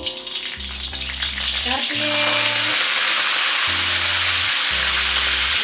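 Whole spices, lemongrass and curry leaves sizzling in hot oil in an aluminium wok, the frying hiss swelling about two seconds in and staying loud.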